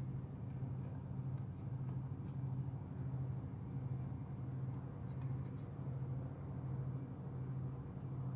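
Cricket chirping steadily, about three short high chirps a second, over a low steady hum, with a few faint clicks.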